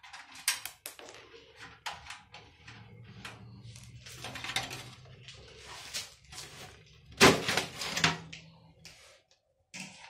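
Sheet-metal side panel of a desktop PC case being worked loose and slid off: a run of clicks, knocks and scrapes, with one loud metal clank about seven seconds in.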